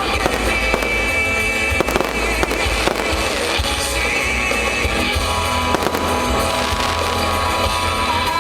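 Fireworks going off in irregular sharp reports over loud music with a steady bass line.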